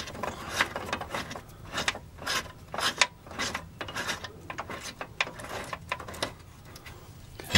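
Hand ratchet clicking in short irregular runs as nuts are run onto the new upper control arm's mounting bolts. The clicks thin out near the end.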